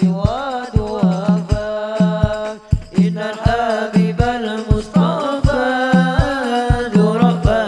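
Sholawat singing, devotional song praising the Prophet, over drums beating a steady rhythm. The voice glides up and down through a melismatic line.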